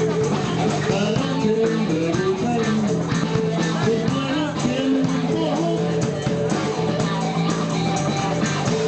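Blues-rock band playing, with a guitar carrying the melody over a steady beat.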